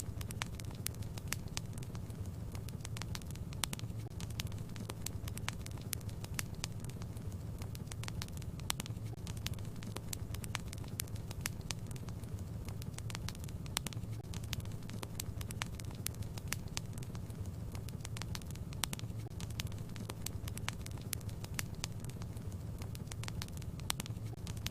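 Fire in a fireplace crackling, with many sharp, irregular pops over a steady low rumble.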